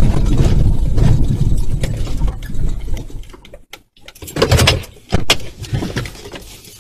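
Car driving over rough, grassy ground, its engine and body rumbling loudly, then fading as it slows to a stop about three seconds in. A few short, loud noises follow.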